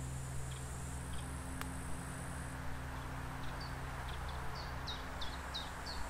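Forest ambience: a small songbird repeating short, falling notes, a few faint ones at first and then about three a second through the second half, over a high insect buzz that stops about halfway through.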